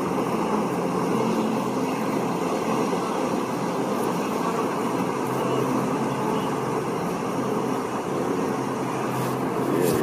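Steady rushing and splashing of river water churned by a wildebeest herd crossing.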